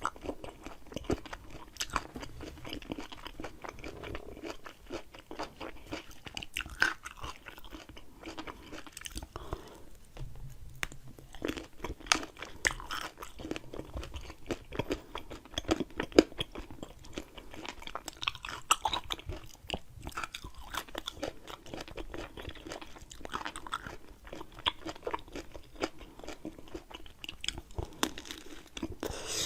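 Close-miked chewing and crunching of fresh produce: repeated crisp bites and chewing crunches, with a short pause about ten seconds in.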